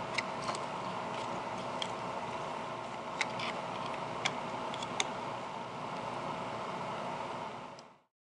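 A few light plastic clicks and taps from handling a small black battery holder, over a steady hiss with a faint steady tone. The sound cuts off abruptly near the end.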